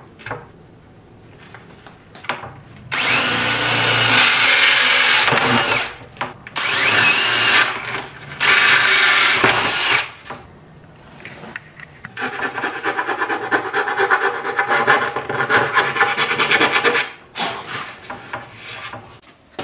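Power drill with a hole saw cutting through plywood in three bursts, starting about three seconds in. After a pause comes about five seconds of fast, rough rasping on the wood.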